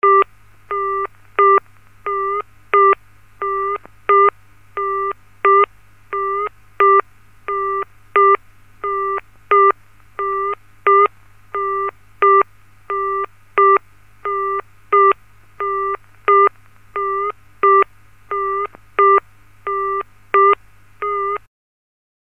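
Landline telephone busy signal: a short tone beeping on and off about every 0.7 s, every other beep louder, over a faint steady low hum. It cuts off suddenly near the end.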